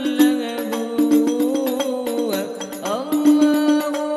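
Hadroh ensemble performing a sholawat: a man sings an ornamented Arabic melody into a microphone over a steady held low note and quick frame-drum strokes, all amplified through a PA loudspeaker.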